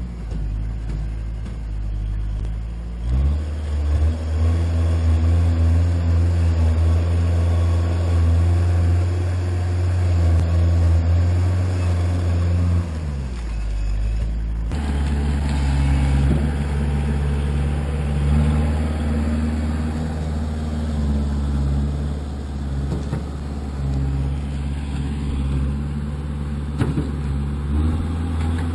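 Kubota backhoe's diesel engine running, its pitch rising about three seconds in and falling back near the middle, then running steadily again.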